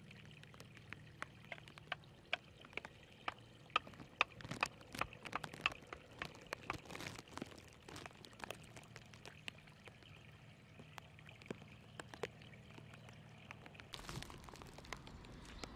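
Shallow water trickling and pouring through a muddy channel, with a run of sharp splashes and knocks from working in the wet mud, thickest in the middle. The water sound grows louder near the end.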